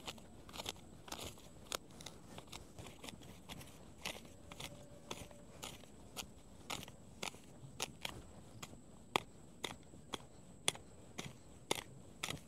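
Plant stems snapping and tearing by hand: irregular sharp crisp snaps, about one or two a second.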